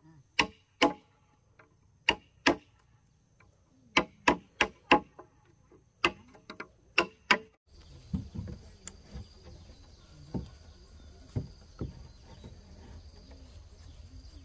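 Sharp blows of a hand tool striking wood, in pairs and short runs of three or four, about a dozen in all. About halfway through they stop and a steady low background noise with a few fainter knocks takes over.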